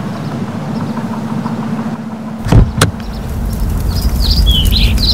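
Fire sound effect as a bus tyre ignites: two sharp thumps about two and a half seconds in, then a low rumble of flames that grows louder. Birds chirp faintly throughout.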